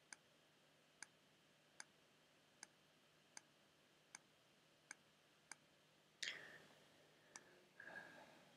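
Computer mouse clicking at an even pace, about one click every three-quarters of a second, as points are placed one by one along a line in embroidery digitizing software. A brief louder noise about six seconds in and a softer one near the end.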